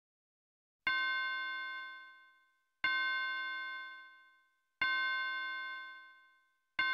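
A bell-like chime note struck four times, the same note each time, about two seconds apart and starting about a second in; each strike rings out and fades away before the next.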